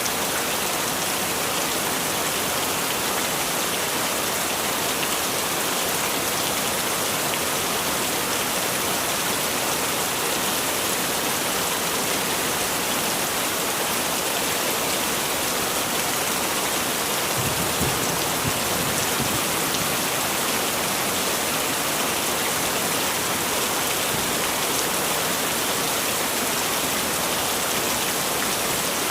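Heavy rain falling steadily, a dense even hiss of drops on surfaces, with a brief low rumble a little past the middle.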